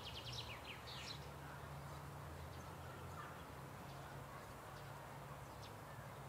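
Small birds chirping: a quick run of short, high chirps in the first second, then scattered fainter calls, over a steady low hum.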